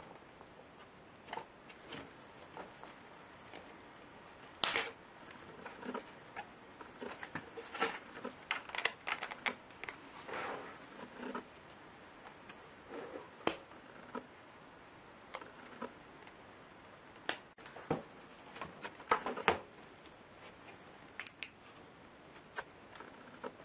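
Irregular small clicks, taps and light rattles of a Lenovo Y570 laptop's plastic and metal parts being handled as it is taken apart. A few sharper clicks stand out, the loudest about five seconds in and in a cluster about two-thirds of the way through.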